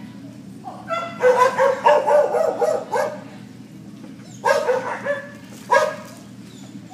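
A dog barking: a quick run of barks from about a second in to three seconds, then two single barks, over a steady low hum.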